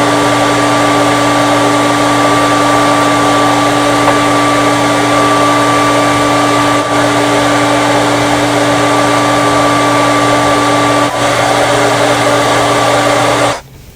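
Handheld hair dryer blowing steadily with a constant motor whine, switched off suddenly near the end.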